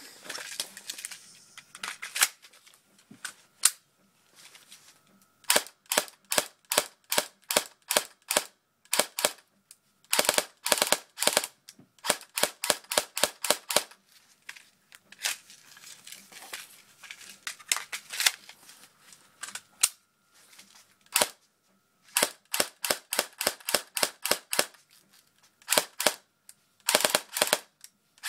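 Airsoft HK MP7 A1 replica firing: sharp snapping shots, mostly two to five a second, in strings broken by pauses of one to two seconds, with quicker runs around the middle and just before the end.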